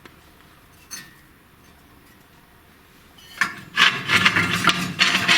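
Rough scraping of something hard on brick and mortar during fireplace masonry: a quiet stretch with one knock about a second in, then a couple of seconds of loud, quick rasping strokes from about three seconds in.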